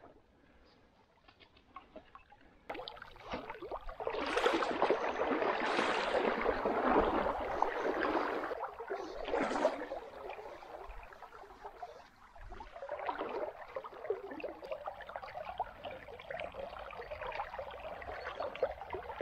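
Water splashing and gurgling close by in a river, quiet at first, then rising about three seconds in with several stronger surges before settling into a steadier trickle.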